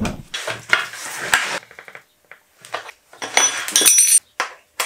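Metal hand tools clinking and clattering in several bouts, the busiest a little past the middle with a bright metallic ring, and a sharp click near the end: a wrench being handled at a chainsaw to adjust the chain tension.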